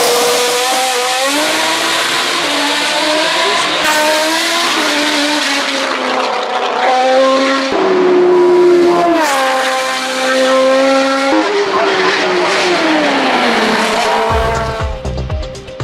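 3.5-litre BMW 320 hillclimb race car engine at high revs, its pitch climbing and dropping sharply as it shifts through the gears, then falling away near the end. A steady beat of music comes in over it in the last second or so.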